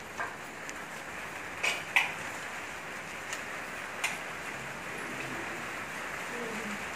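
Stacks of printed paper forms handled by hand, with a few sharp paper slaps and taps, the loudest about two seconds in, over a steady background hiss.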